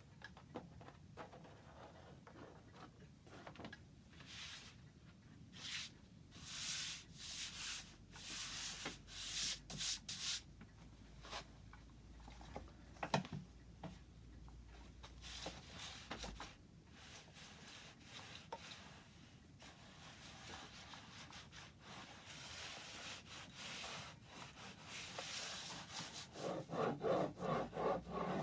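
Hand strokes of a tool or abrasive rubbing across wood, coming in repeated short bursts, busiest about a quarter of the way in and quickening into a faster, regular rhythm near the end.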